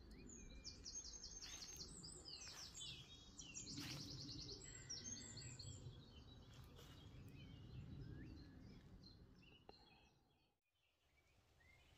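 Faint woodland birdsong: quick trilled series of high chirps near the start and again about four seconds in, with scattered single chirps between, over a low rumbling noise. The sound cuts out briefly near the end.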